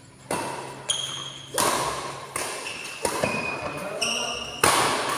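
Badminton rackets striking a shuttlecock in a fast rally, about seven sharp hits less than a second apart, each echoing in a large hall.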